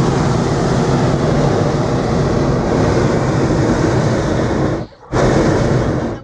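Hot air balloon's propane burner firing, a loud steady roar that cuts off sharply about five seconds in and fires again a moment later.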